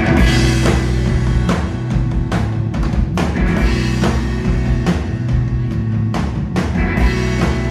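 Live rock trio of electric guitar, electric bass and drum kit playing a song's instrumental opening, the bass and guitar coming in at the start over a driving drum beat.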